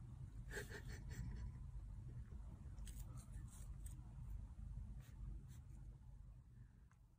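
Faint scratchy clicks and rustles of a kitten's paws handling a small plastic object, over a low room hum; the clicks come in scattered little groups, and the sound fades out near the end.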